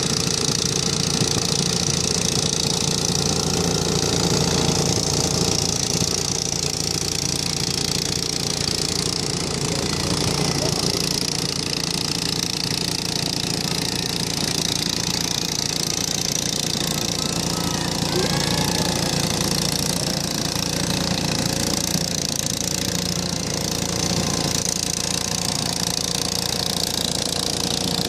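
The 10–12 hp engine of an International Harvester Cub Cadet garden tractor running steadily at idle, with no revving or change in pitch.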